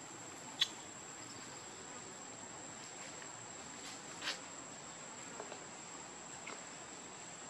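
Insects giving a steady high-pitched drone, with two brief sharp clicks, one about half a second in and one about four seconds in.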